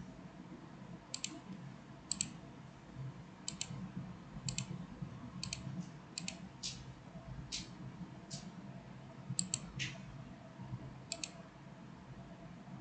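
About fourteen light clicks at uneven intervals, several in quick pairs, over a faint low hum.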